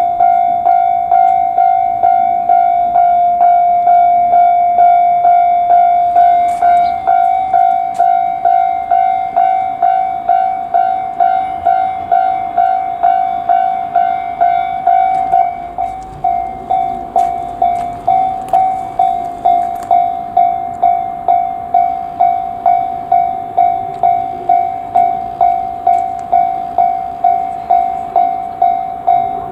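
Japanese level-crossing warning bell ringing steadily, about one and a half strikes a second, as a freight train passes with faint clicks from its wheels.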